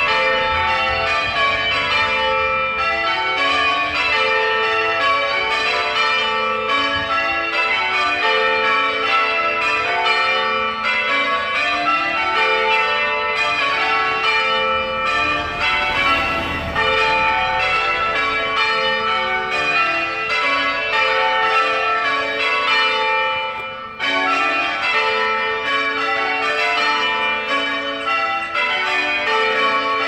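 Church tower bells in English change ringing: a continuous, even stream of bell strikes, one bell after another, their ringing tones overlapping.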